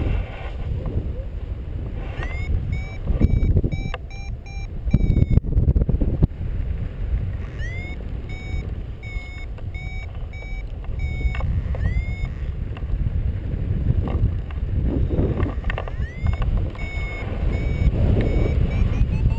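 Paragliding variometer beeping in runs of short tones, about two to three a second, each sliding up at its start, with pauses between runs; the beeping signals the glider climbing in lift. Under it, steady low rumble of wind on the microphone, with a few sharp clicks around five seconds in.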